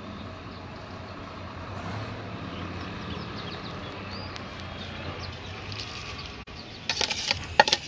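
Metal spatula scraping and knocking against a steel bowl and iron kadhai as solid ghee is scooped out into the pan, a cluster of sharp clinks and scrapes near the end, over a steady low hum.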